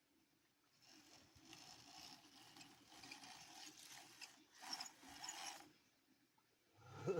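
Small 1:16-scale WPL C24 remote-control truck's motor and gears running faintly in stop-start stretches of a second or two, then a short louder low sound near the end.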